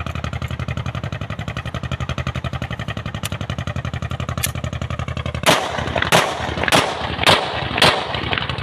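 Five pistol shots from a Pakistani-made TT 30 bore (7.62×25mm Tokarev) pistol, fired in quick succession about half a second apart, starting a little past halfway. An engine idles steadily in the background throughout.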